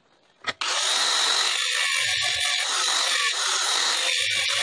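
Angle grinder with a thin cutoff wheel cutting into a steel railroad spike, starting abruptly about half a second in and running steadily at full speed with small changes in tone as the wheel bites.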